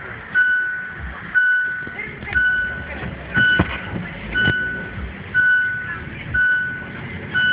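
An electronic beeper repeating a steady high tone about once a second, each beep about half a second long, over low traffic rumble.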